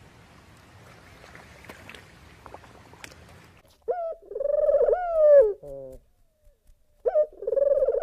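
Faint low background noise, then a dove cooing. A run of low, wavering coos starts about four seconds in, and after a short pause another coo comes near the end.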